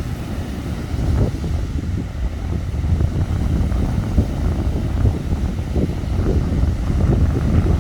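Wind on the microphone, a steady low noise over the sound of ocean surf breaking on the beach.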